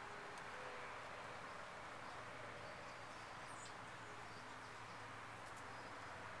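Faint outdoor ambience: a steady hiss with a low hum underneath, and a single brief, high chirp a little past halfway.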